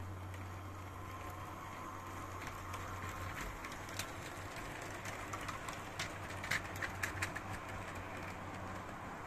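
Model diesel locomotive running on a tinplate layout track, with a steady electric hum for the first three seconds, then a run of clicks and clatter from its wheels over rail joints and points between about four and seven and a half seconds in.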